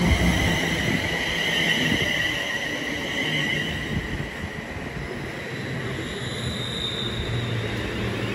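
Class 350 Desiro electric multiple unit arriving and slowing at the platform. A high-pitched squeal falls slightly in pitch and fades over the first few seconds, over a low hum. A fainter high whine comes in near the end.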